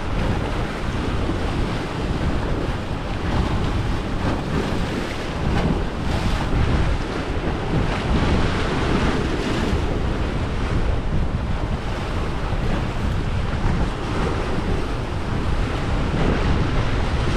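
Small waves breaking and washing over shoreline rocks, with wind buffeting the microphone as a steady rumble.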